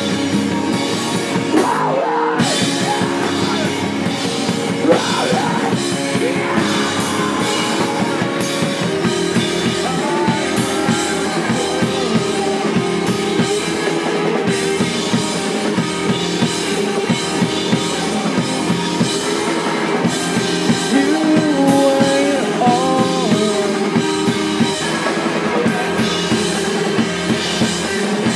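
Live rock band playing loudly: a drum kit driving a steady beat under electric guitars and bass, with a brief stop about two seconds in.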